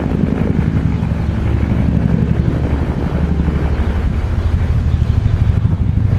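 Low-flying helicopter, its rotor and engine making a loud, steady, rapidly pulsing low drone, with wind buffeting the microphone.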